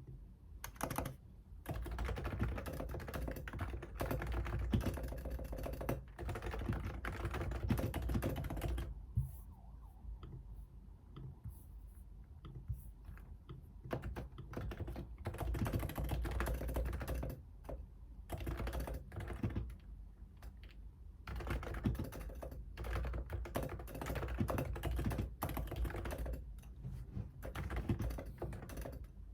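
Fast typing on a computer keyboard, in runs of rapid keystrokes broken by short pauses with only a few scattered key presses.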